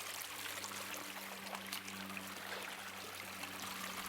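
Running water of a forest stream, a steady rushing, with a faint low hum beneath it.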